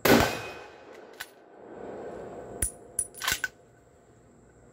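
A CZ 600 bolt-action rifle in .30-06 fires one shot right at the start, loud, with a tail of echo lasting about a second. The bolt is then worked: a click about a second in, then a quick run of sharp metal clacks around three seconds in as the next round is chambered.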